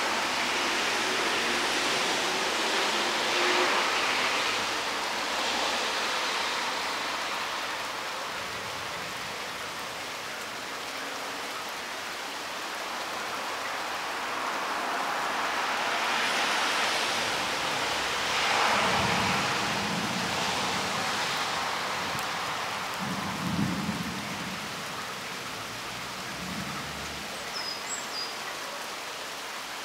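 Steady rain with the hiss of traffic on a wet road, swelling and fading twice. Low rumbles of thunder come in the second half.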